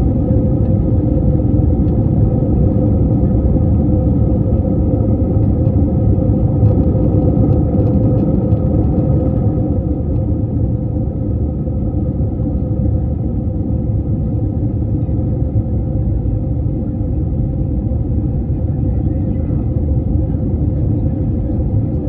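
Jet airliner cabin noise: a steady, loud rumble of engines and airflow with a constant hum, easing slightly about halfway through.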